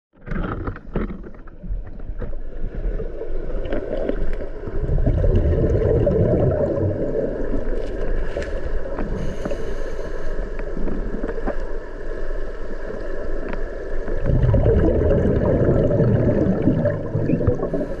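Underwater sound of a waterfall plunge pool: muffled rushing and gurgling water, swelling twice in long surges, with a few clicks near the start.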